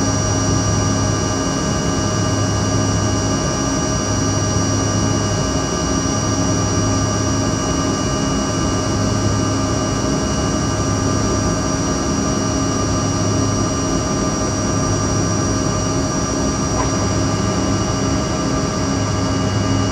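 Jet airliner's engines and rushing airflow heard inside the cabin while climbing out after takeoff: a steady roar carrying a low hum and a high whine, with the low drone swelling and fading every few seconds.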